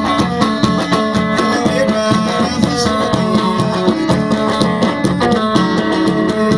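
Eritrean folk dance music played over a PA: a plucked string melody over a steady drum beat.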